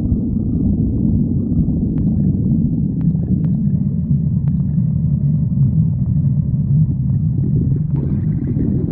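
A person's stomach growling: a loud, continuous low rumble, with a few faint clicks.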